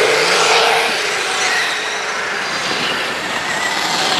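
Electric motors and geared drivetrains of scale RC crawler trucks whining steadily as they drive over a dirt trail. One truck rolls close by near the end.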